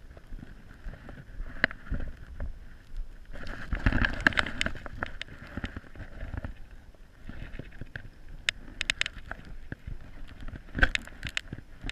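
Irregular knocks, taps and rustling from hands and gear on a kayak, busiest about four seconds in and again near the end, as a seagull is worked free of tangled braided fishing line.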